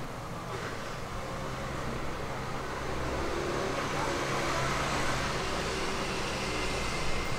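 Steady road traffic noise, a vehicle running close by, growing louder about three seconds in.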